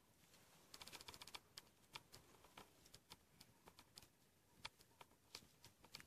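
Near silence with faint, scattered clicks and crackles: a quick cluster about a second in, then single ticks every half second or so.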